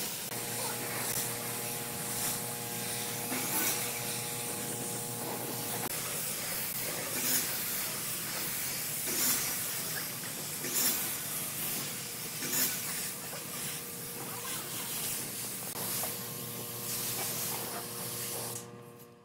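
Compressed-air spray gun hissing as it sprays finish onto wood, with louder pulses every second or two, over a steady hum. The sound stops abruptly near the end.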